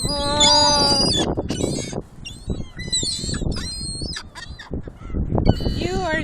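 A flock of gulls calling over one another: one long, held call in the first second, then many short, sharp squawks overlapping.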